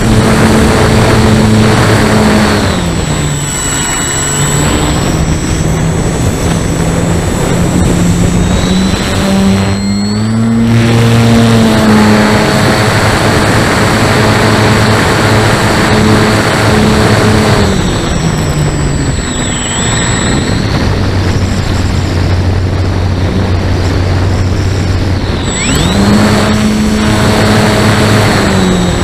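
Parkzone S.E.5a's electric motor and propeller running, heard from the onboard camera with wind rushing over the microphone. The motor pitch falls as the throttle is cut back about three seconds in, climbs again around ten seconds, falls again near eighteen seconds and climbs once more near the end.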